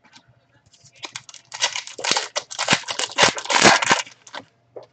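Crinkling and tearing of a trading-card pack's shiny wrapper as it is ripped open by hand, a dense crackle starting about a second in and ending shortly before the end.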